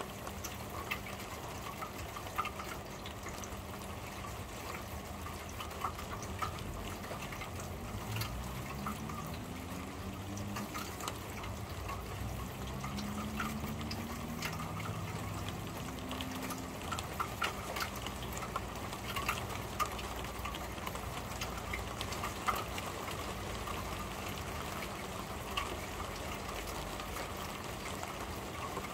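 Rain on a corrugated metal roof, heard from underneath: a steady wash of rain with scattered louder drop ticks. A low hum rises in pitch from about eight seconds in and fades out by about seventeen seconds.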